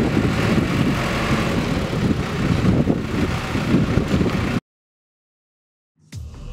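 Farm tractor engine running steadily, then cut off abruptly about four and a half seconds in; music begins to fade in near the end.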